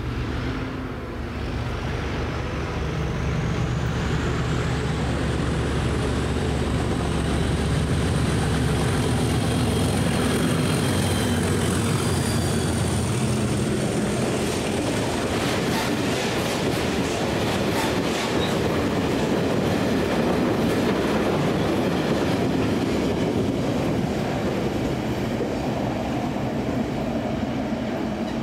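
A Class 97/3 diesel locomotive, a rebuilt Class 37 with an English Electric V12 engine, running through on a train of hopper wagons: engine hum and a high whistle for roughly the first twelve seconds, then the wagons rolling past with steady wheel clatter, easing near the end.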